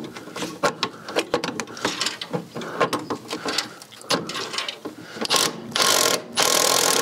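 Hand socket ratchet clicking as a half-inch nut on an engine mount bolt is undone: scattered single clicks at first, then quicker, louder runs of clicking in the last couple of seconds.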